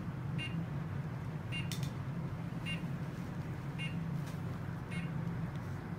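Medical equipment beeping: a short, high electronic beep repeats about once every second over a steady low hum.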